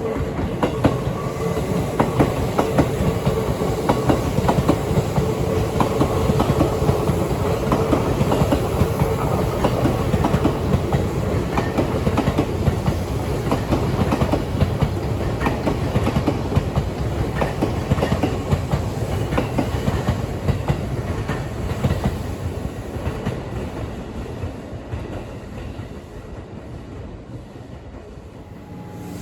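Commuter train running on rails, a steady rumble with the clack of wheels over rail joints. The sound eases off over the last several seconds.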